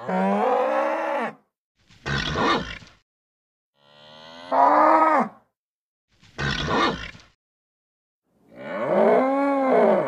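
A bull mooing in three long calls, each rising then falling in pitch, alternating with two shorter rough grunts, with silent gaps between the calls.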